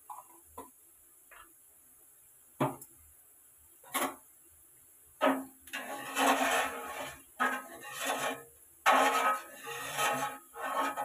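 A few sharp knocks, then from about five seconds in a metal spoon stirring and scraping around an aluminium pot of water, in repeated scraping strokes with the pot ringing faintly.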